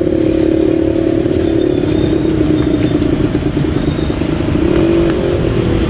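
A vehicle engine running steadily, with some light clatter over it.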